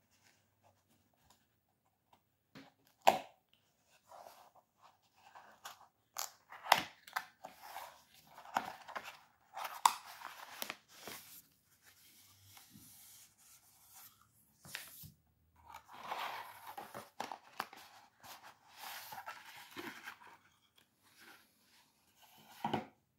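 Cardboard packaging being handled and opened by hand: several sharp knocks and clicks of the box and its sliding inner tray, between bursts of rustling from the wrapped contents and the paper manual.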